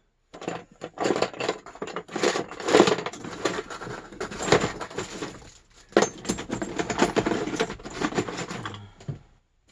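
Hands rummaging through a box of loose plumbing parts and tools: continuous clattering and knocking of hard pieces shifted against each other, with a short lull about halfway through.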